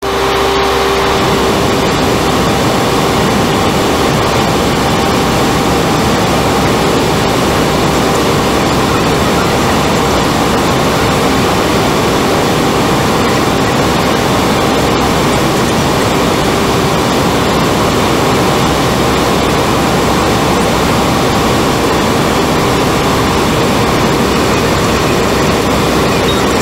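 Steady cockpit noise of an ATR 72-500 turboprop airliner in descent. The constant drone of its engines and propellers blends with the rush of air over the airframe, and a couple of steady tones run through it.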